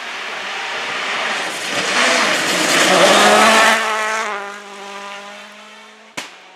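A rally car approaching at speed on a gravel stage, its engine and the noise of its tyres on loose gravel growing to a loud peak as it passes close. The engine note then drops slightly and fades as the car drives away. A single sharp crack sounds near the end.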